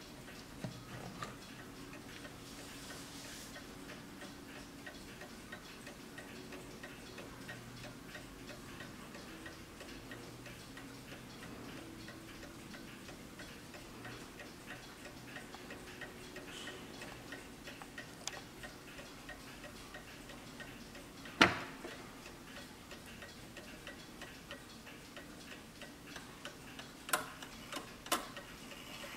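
Quiet, steady ticking of a Junghans mantel clock's pendulum movement, with one sharper click about two-thirds through and two more clicks near the end.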